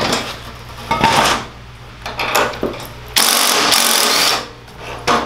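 Cordless impact wrench hammering for about a second as it spins the nut off a go-kart's front wheel axle. A couple of shorter bursts come before it.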